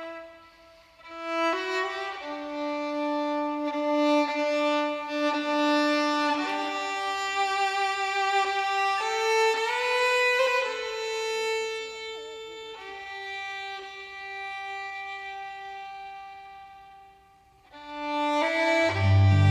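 Background music: a solo violin playing slow, sustained notes, with a low bass coming in near the end.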